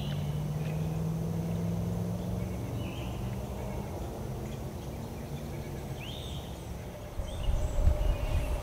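A motor's steady low hum that fades over the first few seconds, with birds chirping a few times in the background. Low rumbling bursts come in near the end.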